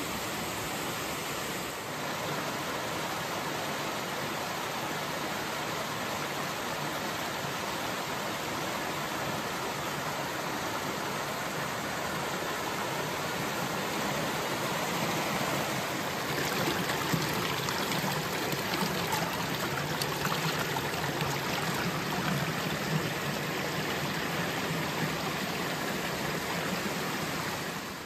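Steady rush of a small mountain waterfall and stream splashing over rocks, a little louder in the second half, fading away at the very end.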